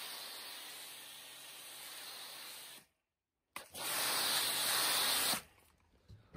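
MJJC snow foam lance on a pressure washer spraying foam, a steady hiss of spray. It breaks off about three seconds in, then comes back louder for about two seconds and stops sharply.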